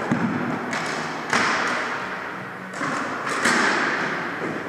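Floor hockey sticks clacking and hitting the ball on a hardwood gym floor: a handful of sharp knocks, each echoing around the hall.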